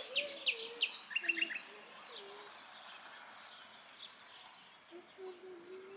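Small birds chirping outdoors: a busy burst of high chirps and a quick trill in the first second and a half, then five quick rising chirps near the end. Faint low sliding notes, like cooing, run underneath.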